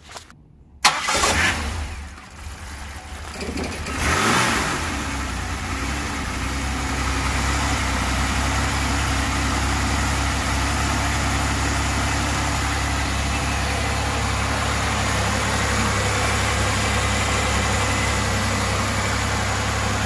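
A GM 3800 Series III V6 is cranked and started with its faulty MAP sensor unplugged. It catches and revs up about four seconds in, then settles into a steady idle, running on the computer's default value instead of the bad sensor's reading. The start is a little rough.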